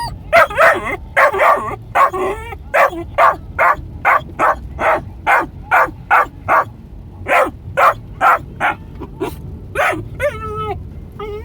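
Australian Shepherd puppy barking in a rapid string of short, high barks, two to three a second, with a brief pause partway through, then a drawn-out wavering whine near the end. A low steady rumble runs underneath.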